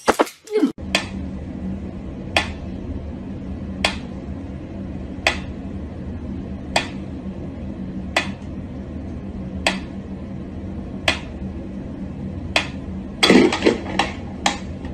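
Pyramid-shaped mechanical metronome ticking slowly, one sharp tick about every second and a half, over a low steady hum. Near the end comes a short flurry of louder knocks and quick clicks.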